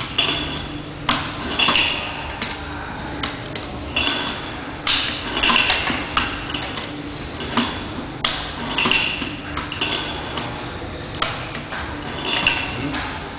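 Metal clacks and knocks from a small hand-operated ink printing machine as its handle and sliding parts are worked, each with a brief metallic ring, coming about once a second at uneven intervals.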